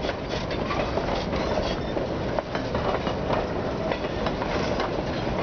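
Narrow-gauge passenger coaches of the Durango & Silverton train rolling slowly past on the track, wheels running over the rails with a steady rumble and scattered clicks and knocks.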